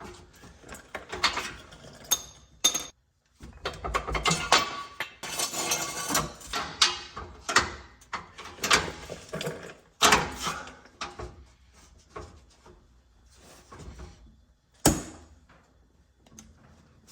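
Hand tools working on rusted exhaust bolts under a car: irregular metal clanks, clicks and rattles of wrench and sockets, with one sharp knock near the end.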